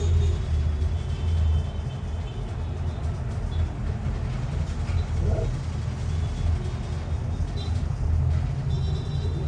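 Steady low background rumble, like street traffic or a machine hum, with no clear foreground sound.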